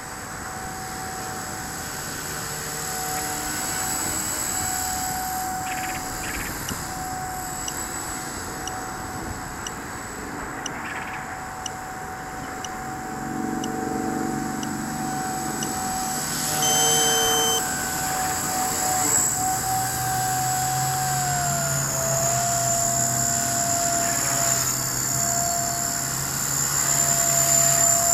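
Blade 180 CFX electric RC helicopter's motor and rotors whining steadily, the pitch dipping slightly about three-quarters of the way through. A short electronic beep sounds a little past the middle.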